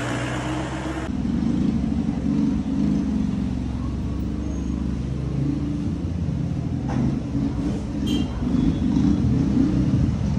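A motor vehicle's engine running, its pitch drifting up and down, heard mostly as a low rumble.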